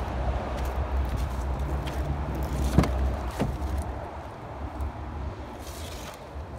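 Rear door of a Kia Opirus sedan being opened: the latch clicks sharply about three seconds in, with a second click just after, over a steady low rumble.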